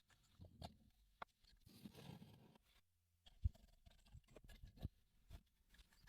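Faint scattered clicks and taps of tools and small metal parts being handled, with one louder knock about three and a half seconds in.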